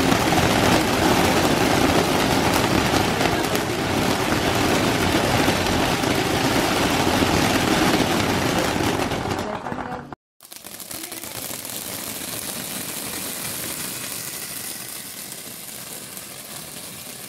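A Mori sunflower pops fountain firework spraying sparks, with a steady rushing hiss and scattered pops. About ten seconds in the sound cuts out for an instant and returns quieter and thinner.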